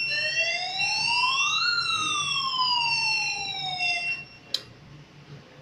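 Fire alarm sounding during a test: a siren tone rising for about two seconds and falling again, with a steady high-pitched tone alongside. Both cut off about four seconds in, followed by a sharp click.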